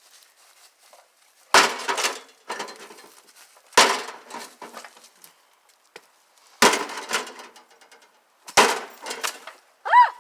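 An axe striking a microwave oven four times, about two seconds apart, each blow followed by a short clatter of breaking parts.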